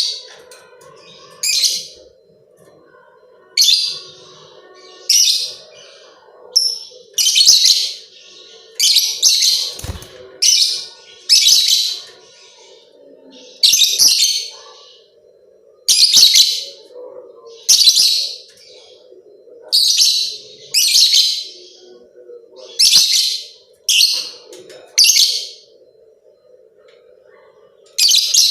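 Lovebird chattering in repeated high-pitched bursts, each under a second long and coming every one to two seconds, over a steady low hum.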